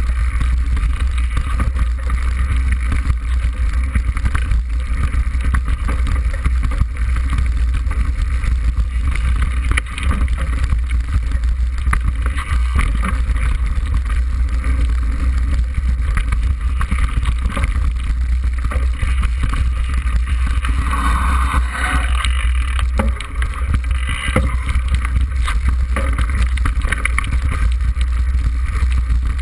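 Mountain bike rolling fast down a rough track, heard through a bike-mounted camera: a steady heavy rumble of wind on the microphone and vibration, with constant small rattles and knocks from the bumpy ground.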